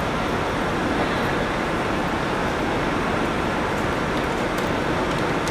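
Steady city street traffic noise: an even din of passing vehicles with no single distinct event.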